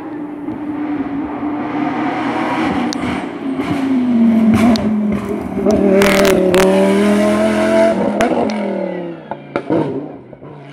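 Lamborghini Huracán Super Trofeo's V10 race engine coming into a hairpin, dropping in pitch as it brakes and shifts down, with a few sharp cracks. It then accelerates hard past and away, rising in pitch, shifting up, and fading near the end.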